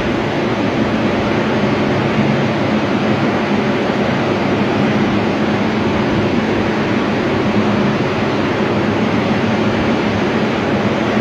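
Several structural-drying air movers (snail-shell carpet blowers) and drying units running together, a loud, steady rush of air over a low motor hum, as they dry out a flood-damaged room.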